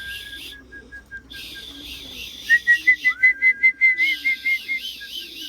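A person whistling to call pigeons into the loft: a note that slides up and holds, then a run of quick, repeated short notes, then another up-slide held for over a second.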